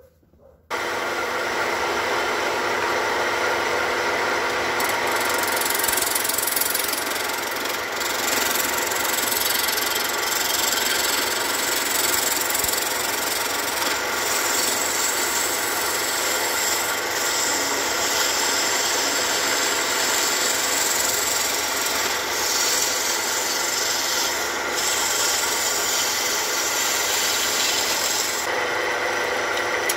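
Wood lathe running while a hand-held turning chisel cuts a spinning wooden blank: a steady scraping hiss of the cut over the lathe motor's hum. It starts abruptly about a second in.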